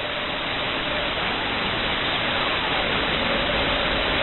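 Static hiss from an SDR receiver tuned to CB channel 6 (27.025 MHz) on the 11-meter band, heard through the receive filter with no one talking. A faint steady whistle from an off-frequency carrier sits under the hiss.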